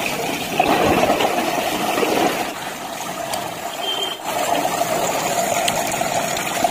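Water gushing out of an electric geyser's tank through its open heating-element port as the tank is tipped over, splashing steadily onto a wet concrete floor.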